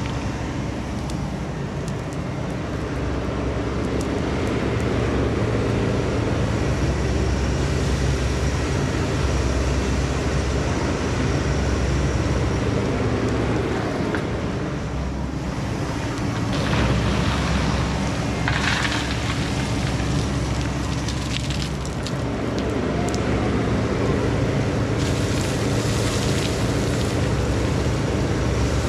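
Takeuchi TB2150 excavator's diesel engine running under working load, swelling and easing as the machine digs, with spells of scraping about halfway through and again near the end.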